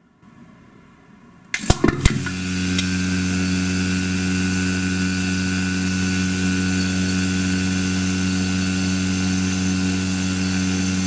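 A vacuum pump starts about a second and a half in and runs with a steady hum and hiss, drawing the air out of an aluminium drink can. A burst of sharp cracks comes as it starts, and the can crumples under the outside air pressure.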